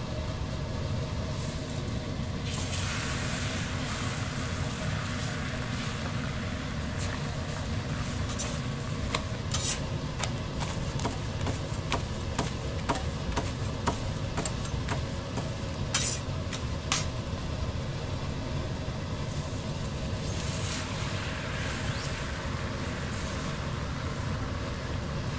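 Flaky flatbread and beaten egg frying on a steel flat-top griddle, sizzling over a steady low hum, with sharp clicks and scrapes of a metal spatula and tongs against the griddle a few times.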